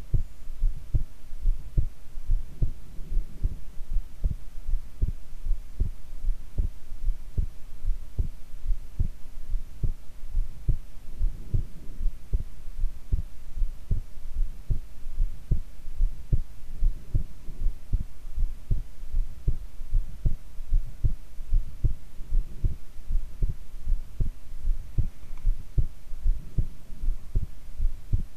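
A woman's heartbeat: a steady, regular train of low-pitched beats, with a faint steady hum underneath.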